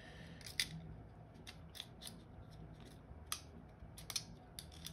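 Faint, scattered light clicks of the metal parts of a hi-capa gas blowback airsoft pistol's slide as the guide rod and recoil spring are worked loose by hand.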